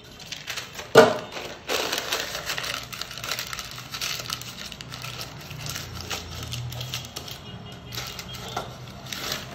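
Baking paper crinkling and rustling as it is pressed and folded into a round aluminium cake tin, with one sharp knock about a second in.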